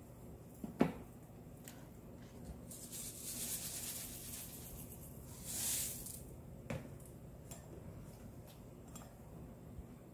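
A spoon knocks once on a glass mixing bowl, then dry sugar and sesame seeds are sprinkled off the spoon onto shredded radish with soft, hissy rustles. A second sharp tap on the bowl and a few light clicks follow.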